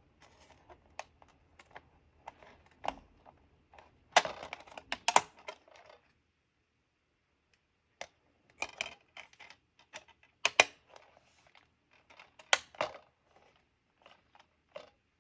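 Clicks and rattles of a plastic DVD set being handled. The sharp taps come in scattered groups, with a short pause in the middle.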